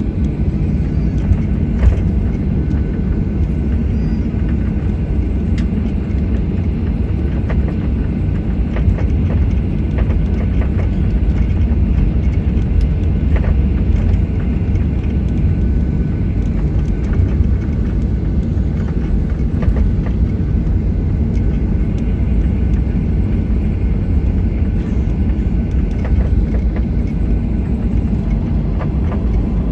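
Steady low rumble inside an airliner cabin as the jet taxis after landing, its engines running at low power and the airframe rolling over the taxiway, with a steady low hum under it.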